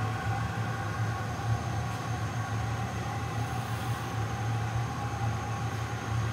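Steady low drone of a running glass furnace, with a few faint steady whines above it.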